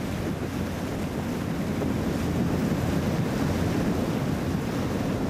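Steady rush of rough sea water and waves, with wind.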